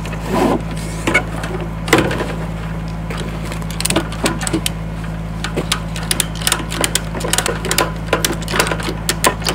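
Ratchet strap being worked to cinch a wooden feeder to a metal fence post: a run of quick, irregular clicks, with a single knock about two seconds in. A steady low hum runs underneath.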